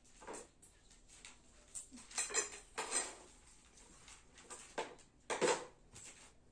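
Dishes clinking and grape leaves rustling as stuffed vine leaves are rolled by hand: a handful of short clatters, the loudest about five and a half seconds in.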